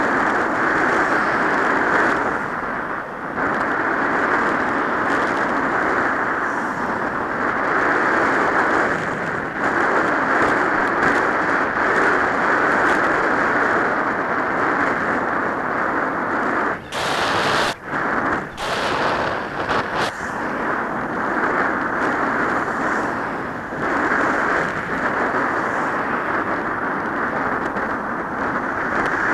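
Wind buffeting a bicycle helmet camera's microphone while riding, a loud steady noise, with a few short sharp noises a little past halfway.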